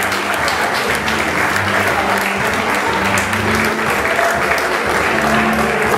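Crowd applauding, with music playing underneath.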